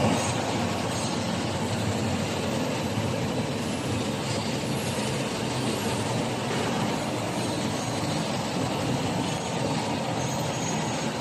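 1000 mm flexographic printing machine running, with its rollers turning, the printed web feeding through and its drying fans on: a steady, even mechanical noise.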